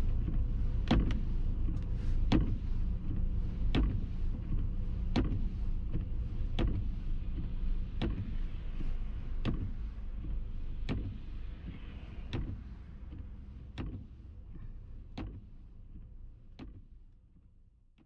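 Inside a 2005 Subaru Forester driving on snow: a steady low engine and road rumble, with windshield wipers knocking at the end of each sweep about every second and a half. The whole sound fades out over the last few seconds.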